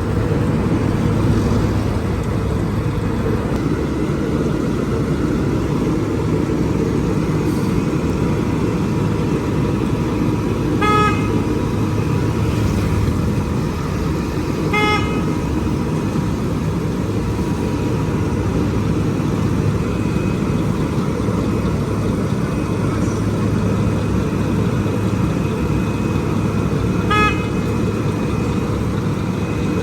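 Heavy road-construction machinery running steadily, with three short horn toots: one about a third of the way in, another a few seconds later, and one near the end.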